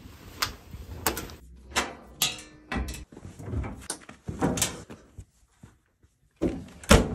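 Irregular knocks, clunks and rustles of objects being handled and set down, in short pieces cut one after another, with the loudest knock near the end.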